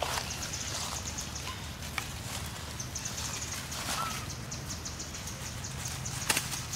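Outdoor forest ambience: macaques stepping over dry leaf litter with a few sharp crackles, the loudest about six seconds in, over a rapid, evenly repeating high-pitched chirping.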